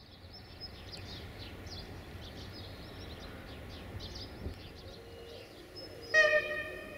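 Birds chirping over a low rumble, then about six seconds in the approaching Desiro diesel multiple unit sounds its horn in one short blast, the loudest sound here.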